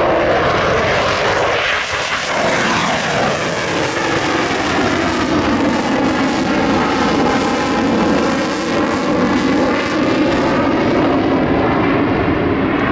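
Loud, steady jet noise from an F-22 Raptor's two Pratt & Whitney F119 afterburning turbofans during a low demonstration pass, afterburners lit. The pitch of the noise sweeps as the jet passes.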